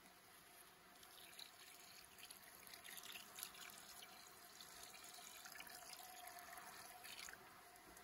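Bee-feeding syrup poured from a plastic canister into a plastic feeder tray in a wooden hive: a faint steady trickle and splash that starts about a second in and stops about seven seconds in.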